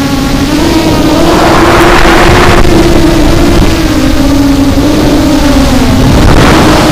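FPV quadcopter's electric motors and propellers whining, heard through the onboard action camera, the pitch drifting up and down with throttle. A louder rushing surge comes about a second in, and another near the end as the throttle is punched.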